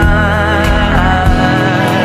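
Indonesian pop song playing: a held, wavering sung vocal line over bass and drums.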